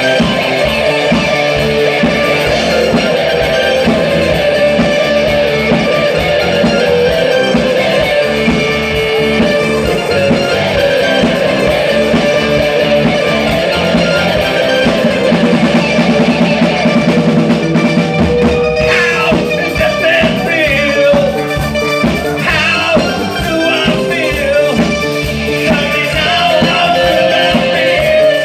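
Live new wave rock band playing: electric guitars, bass and a steady drum beat, with lead vocals coming in about two-thirds of the way through.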